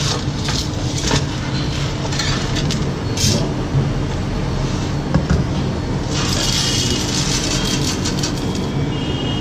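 Dry roasted gram dal clinking and rattling as a steel tumbler scoops it from a steel tray, then a dense rushing patter as it is poured into a steel mixer jar from about six seconds in. A steady low hum runs underneath.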